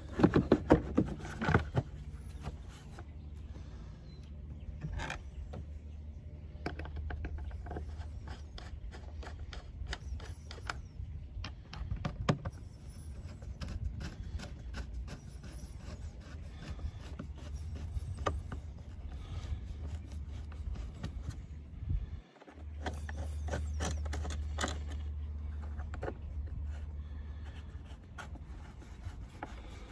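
Hard plastic clicks, knocks and scrapes as a Mercedes Vito's air box lid is seated and its clips snapped over, with a screwdriver worked around it. A cluster of loud knocks comes at the start and scattered clicks follow, over a steady low rumble that drops out briefly about two-thirds of the way through.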